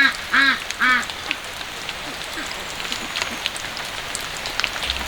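Three short pitched calls from a fowl in quick succession in the first second, each rising and falling in pitch. A steady faint hiss with scattered light ticks follows.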